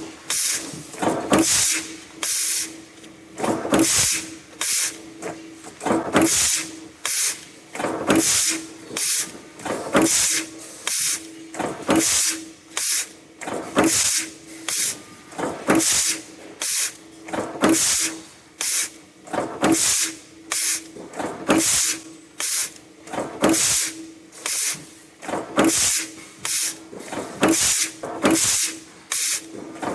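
Press machine cycling as it draws and punches stainless steel wire mesh, with a burst of compressed-air hiss about once a second in an even rhythm over a steady machine hum.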